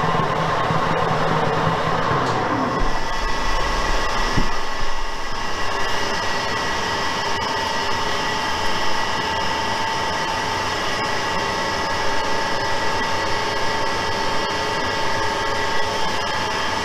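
Metal lathe turning an aluminium alloy wheel while a carbide boring bar cuts its center bore. About two seconds in the sound changes as the spindle stops, and a steady machine whine carries on.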